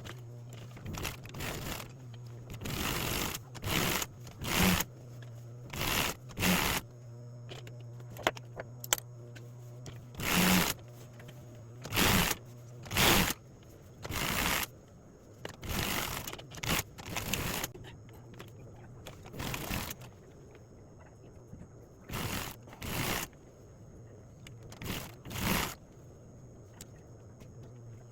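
Sewing machine stitching in many short starts and stops, each run under a second or so, as a folded seam edge is sewn down.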